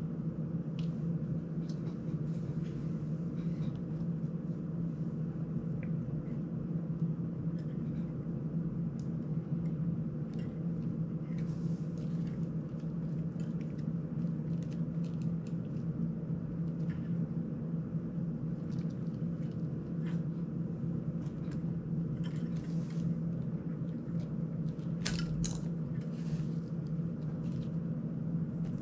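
Faint small plastic clicks and rattles as a GEPRC CineLog 35 drone's ducted frame, prop guards and propeller are handled and fitted by hand, with one sharper click late on. A steady low hum runs underneath.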